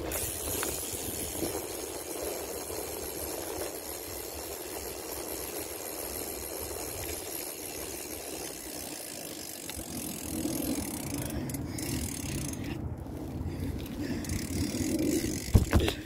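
Bicycle being ridden over pavement: steady rolling noise with the freewheel clicking, and a loud knock near the end.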